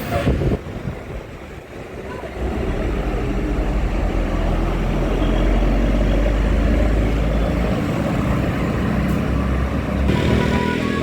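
Heavy vehicle's engine passing close by with a deep rumble that builds about two seconds in and eases off near eight seconds, over steady road traffic noise.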